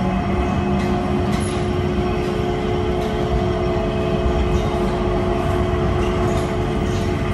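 Changi Airport SkyTrain, a driverless people-mover car, running along its track as heard from inside the car: a steady rolling hum with a few held tones and occasional faint clicks.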